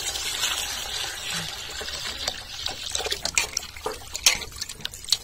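Water pouring into a steel bowl of cut fish pieces, then hands swishing and splashing the pieces about in the water to rinse them.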